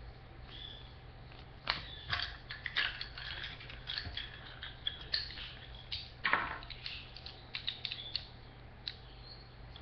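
Surprise egg's plastic toy pieces and packaging being handled: a run of irregular clicks and crinkles, sharpest about two seconds in and again around six seconds.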